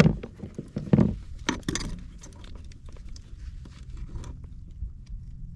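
Handling noise in a plastic fishing kayak as a just-caught sea trout is unhooked: several sharp knocks and rattles in the first two seconds, then faint scattered clicks over a low steady rumble.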